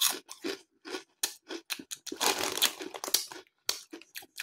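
Foil crisp packet crinkling and rustling as it is handled, a run of short crackles that thickens about two seconds in.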